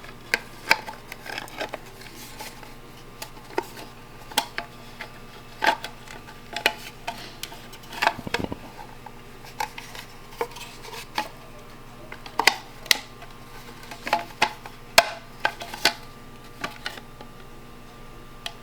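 Irregular small clicks and taps of hard plastic and metal parts being handled as covers are fitted onto custom fog light housings, over a faint steady hum.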